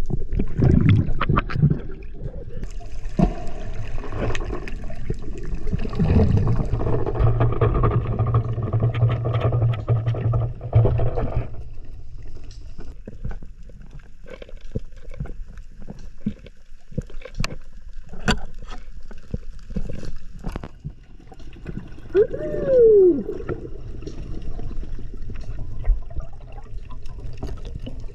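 Underwater sound on a reef: many sharp clicks and crackles, a steady low hum for several seconds that cuts off abruptly, and a brief muffled voice-like tone that rises and falls about twenty-two seconds in.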